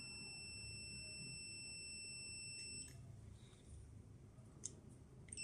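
Digital multimeter's continuity buzzer giving a steady high-pitched beep as its probes touch a faulty power-tool lithium battery pack's terminals, signalling that the circuit is conducting. The beep cuts off about three seconds in, and a couple of light clicks follow near the end.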